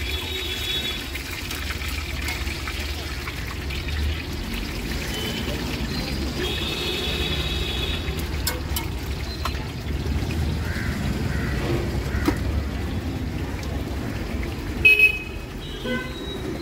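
Vazhakkai bajji (battered raw-plantain slices) deep-frying in a large iron kadai of hot oil: the oil sizzles and bubbles steadily over a low rumble, with a few faint clicks. Short high tones sound a few times, the loudest about a second before the end.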